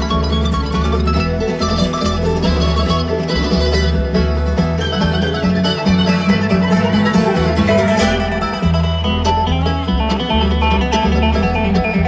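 Background music: up-tempo plucked-string band music in a bluegrass style, with a steady, pulsing bass.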